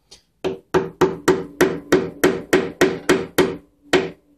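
Small ball-peen hammer tapping a press-fit part into a Greenfield No. 0 tap wrench handle: a quick run of light strikes, about four a second, each with a short metallic ring.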